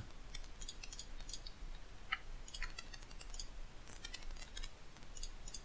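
Computer mouse buttons clicking, small sharp clicks at an irregular pace, often in quick clusters, as brush strokes are dabbed onto the canvas.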